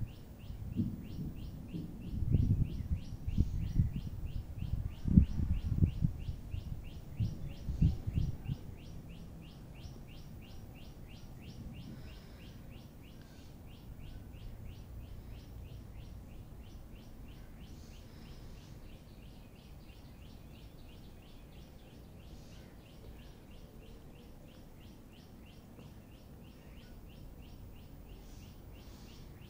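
A rapid, even train of high chirps, about five a second, from a small chirping animal. During the first eight seconds or so there is a low, uneven rumbling noise underneath that then dies away.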